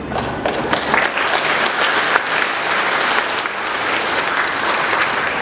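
Audience applause: many people clapping steadily, swelling about a second in.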